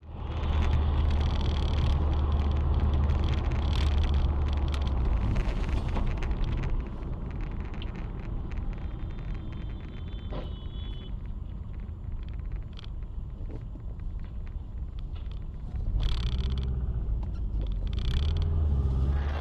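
Engine and road noise of a moving car, picked up by a dashboard camera inside the cabin. It is a steady low rumble that eases off about six seconds in and comes back strongly about sixteen seconds in, with scattered small knocks and rattles.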